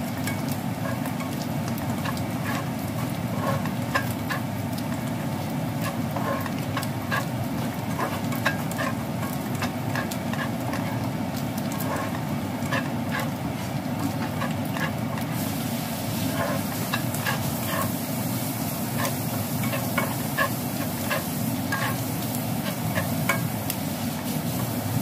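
Chopped Chinese sausage and dried shrimp sizzling in oil in a nonstick frying pan while a spatula stirs them, scraping and tapping against the pan again and again. The sizzle turns brighter and hissier a little past the middle.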